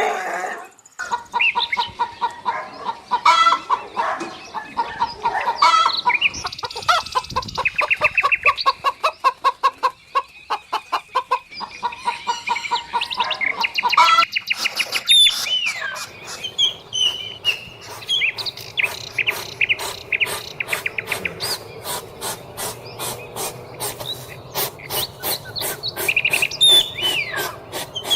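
Chickens clucking, with rapid pulsed calls and high chirps.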